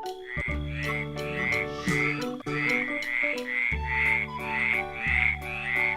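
Frog croaking in a steady rhythm, about three croaks a second, over background music with held notes.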